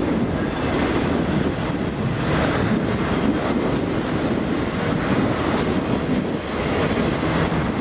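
Freight cars of a double-stack and autorack train rolling past, a steady rumble of steel wheels on rail, with a brief high wheel squeal about two-thirds of the way through.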